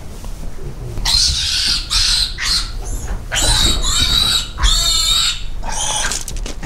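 Weaned feeder piglet squealing as it is caught and lifted by hand. About four loud, high-pitched squeals start about a second in.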